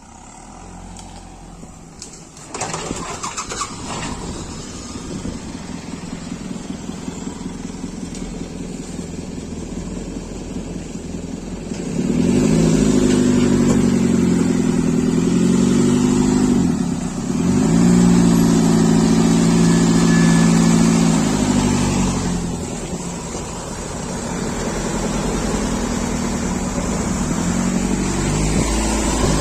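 JCB backhoe loader's diesel engine running, then revving up hard a few seconds in. Past the middle it labours under load, its pitch sagging and recovering twice; it eases off about three-quarters of the way through, then builds again.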